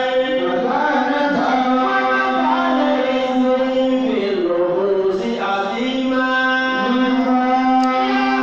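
A man's voice chanting into a microphone in long, drawn-out notes that slide from one pitch to the next.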